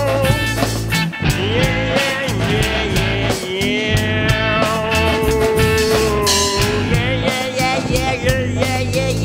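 Rock song with a steady beat and bass, and a melody line that holds long notes.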